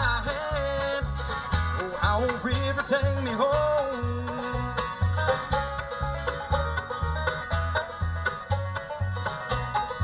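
Live bluegrass band playing: banjo picking over acoustic guitar, with an upright bass keeping a steady beat of about two notes a second.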